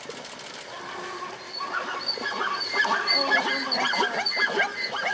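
Plains zebras calling: many short barking calls that overlap, starting about a second and a half in and growing busier.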